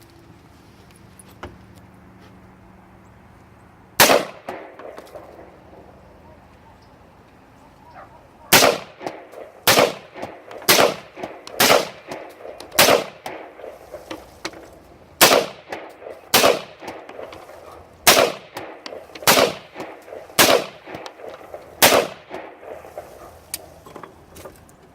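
Smith & Wesson M&P 15 Sport II AR-15 rifle firing twelve semi-automatic shots: a single shot about four seconds in, then after a pause eleven more at roughly one a second.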